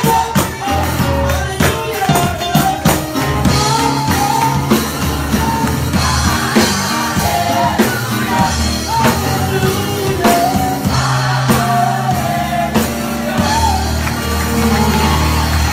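Live gospel song: a woman's sung lead melody over piano and a drum kit, the drums keeping a steady beat.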